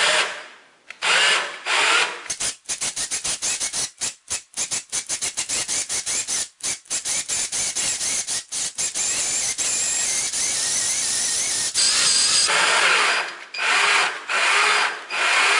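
Electric drill/driver turning the 7/16-inch winding bolt of a Wayne Dalton TorqueMaster garage door spring counterclockwise, letting off the spring's tension as the dial winds back toward zero. The motor runs in short spurts, then in fast stuttering pulses for several seconds, then steadily for a few seconds before more spurts near the end.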